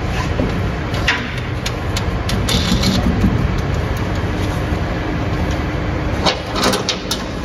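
Steady low machinery drone like a running engine, with a few light metallic clicks and taps from heavy cable lugs being handled on the busbars.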